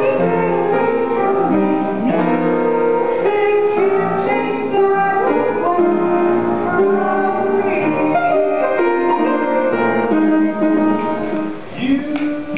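Music: a melody of held notes, with piano tagged among the instruments. The level dips briefly near the end before a new phrase starts.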